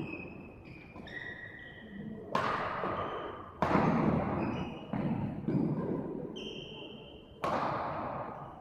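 Badminton rackets striking a shuttlecock in a doubles rally: about five sharp hits spaced one to two seconds apart, each ringing on in the hall's echo. Short high squeaks of shoes on the court floor come between the shots.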